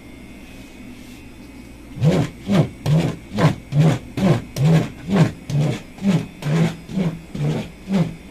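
A plastic spiked dough docker rolled hard back and forth over a thin sheet of pizza dough on a worktable, pricking it. Starting about two seconds in, it makes about a dozen quick buzzing strokes, about two a second, each rising and falling in pitch.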